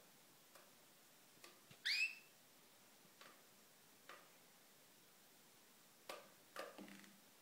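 Canary giving one short rising whistled chirp about two seconds in, the loudest sound, with a scatter of faint soft clicks and taps around it.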